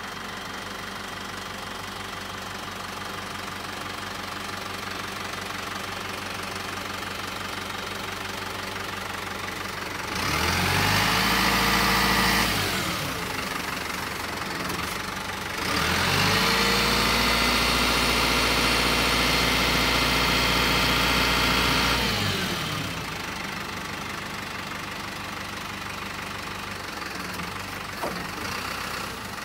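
Hino Dutro's 4.0-litre N04C turbo-diesel engine idling, then speeding up twice: briefly about ten seconds in, and again for about six seconds from the middle, each time rising in pitch, holding and dropping back to idle, as the engine is raised to drive the Tadano ZR264 crane's hydraulics while the boom is worked.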